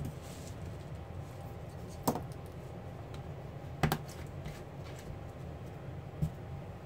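Light clicks and knocks of a paintbrush and a plastic bottle of liquid latex being set down and handled on a tabletop: a few sharp taps about two seconds apart over a steady low hum.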